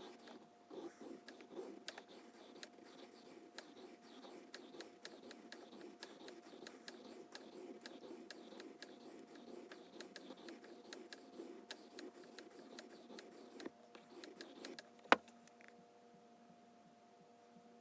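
Steel knife blade stroked rapidly back and forth on a wet 400-grit sharpening stone, a dense run of scraping strokes that stops about fifteen seconds in. A single sharp click follows shortly after.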